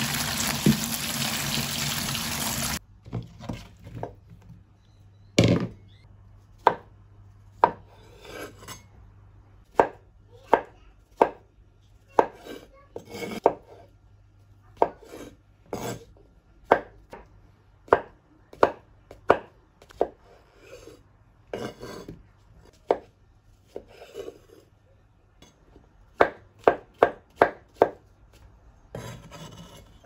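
Tap water running onto button mushrooms in a plastic colander for about three seconds, then a kitchen knife slicing the mushrooms on a wooden cutting board. Each cut ends in a sharp knock of the blade on the board, irregular at about one or two a second, with a quick run of cuts near the end.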